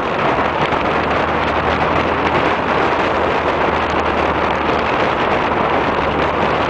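1995 Mitsubishi Eclipse GST driving at a steady speed, heard from inside: loud, even wind and road rush over the turbo four-cylinder engine's low, constant drone.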